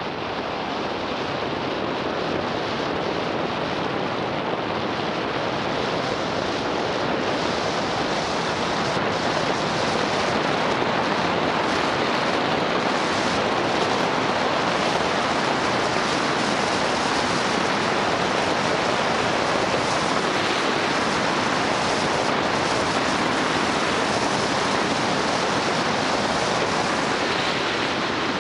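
Steady rush of wind over the microphone of a bike-mounted camera while riding at speed on an e-mountain bike, growing louder over the first several seconds as the bike speeds up, then holding level.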